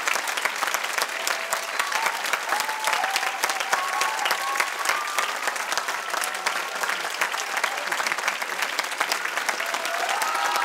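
Theatre audience applauding with steady, dense clapping, a few voices calling out over it.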